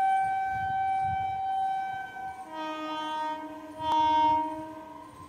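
Horn of an approaching electric train: one long, steady blast, then, a little over two seconds in, a second blast with a fuller, many-note tone that fades away near the end.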